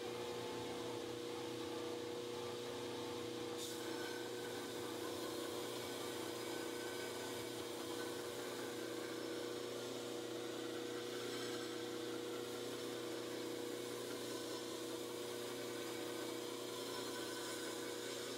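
KMG-style belt grinder with a Leeson electric motor running steadily while a CPM 3V steel cleaver is ground against the belt: an even hum with a hiss of abrasive on steel. One faint click about three and a half seconds in.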